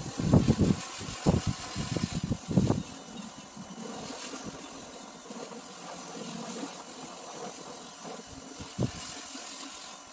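Pressure washer spraying water in a steady hiss while rinsing foam off a car, with irregular low thumps during the first three seconds.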